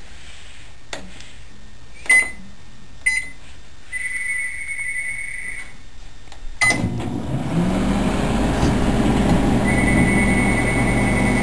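Microwave oven being set and started: two short keypad beeps and a longer beep, a click about six and a half seconds in, then the oven running with a steady hum, a high tone joining it near the end.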